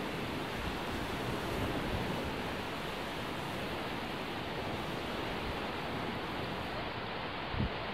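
Steady rushing noise of wind on the microphone, with low gusty buffeting underneath.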